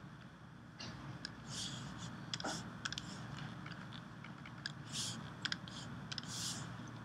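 Scattered computer mouse clicks and light keyboard taps as image files are selected, with a few short rustles over a steady low room hum.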